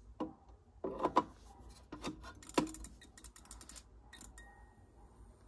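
Sharp plastic clicks and knocks as a PL-S compact fluorescent bulb's pin base is pushed and seated into its lamp socket, several in quick succession. About four seconds in come two more clicks, then a faint high steady whine.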